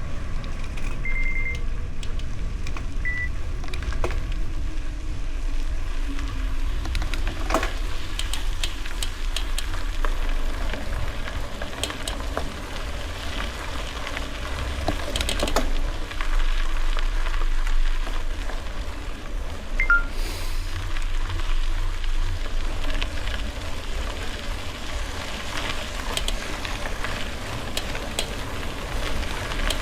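Bicycle tyres rolling over a gravel road, a continuous crackling crunch with many scattered ticks and rattles, over a low rumble of wind on the microphone.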